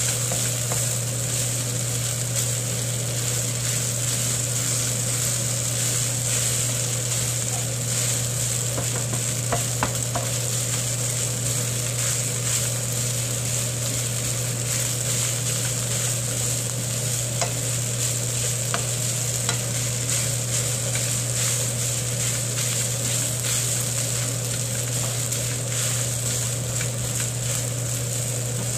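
Kimchi fried rice sizzling in a nonstick frying pan as a wooden spatula stirs and scrapes it, with occasional light ticks of the spatula on the pan, over a steady low hum.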